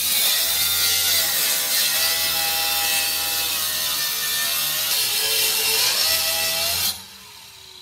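Angle grinder with a cut-off disc cutting through the metal top of an ATM cabinet, a harsh grinding hiss over a motor whine that wavers in pitch as the disc bites. It cuts off suddenly near the end.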